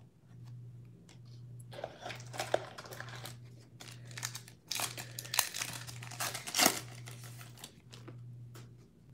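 Foil wrapper of a trading-card pack crinkling and tearing as it is ripped open by hand: a run of crackles from about two seconds in, loudest near the seventh second, then stopping.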